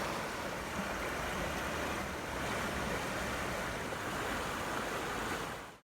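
Running water, a steady rushing that cuts off suddenly near the end.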